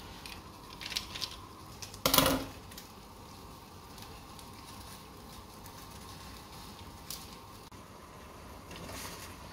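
Cooking noises at a gas hob: packets rustling and a sharp clank of metal cookware about two seconds in, over a steady hiss from the burner and the simmering saucepan.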